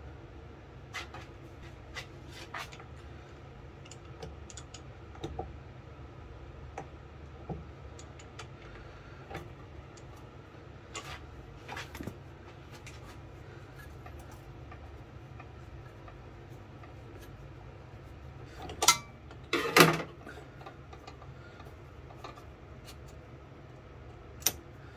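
Small metal clicks and knocks of hand work at a metal lathe, as the chuck is turned by hand and the tap holder and tools are handled. A louder clatter of a few knocks comes about 19 to 20 seconds in, and a sharp click near the end, over a low steady hum.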